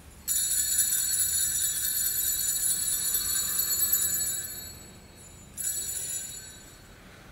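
Altar bells rung at the elevation of the chalice during the consecration. The ringing lasts about four seconds and fades, then a second, shorter ring comes about five and a half seconds in.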